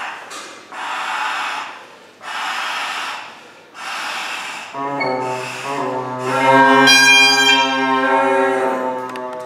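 Iberian bagpipe (gaita de fole) being filled and tuned: four long hissing breaths as air is blown through the blowpipe into the bag, then about five seconds in the drone and chanter strike up and hold a steady note together.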